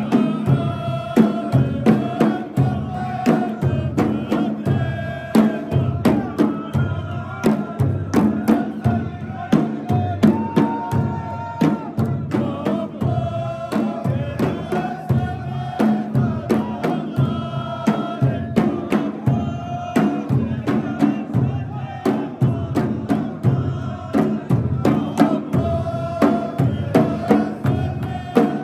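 A chanted song with long held, wavering sung notes over a steady drum beat.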